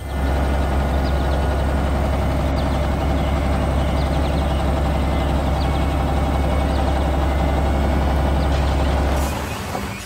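Tractor engine running steadily with a deep low hum, fading out about nine seconds in.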